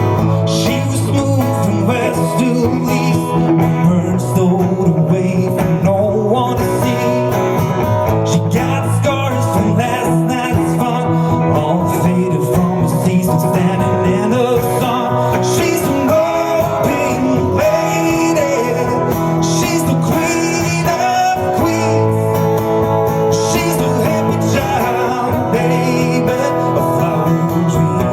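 A live band playing a country song, with guitars to the fore.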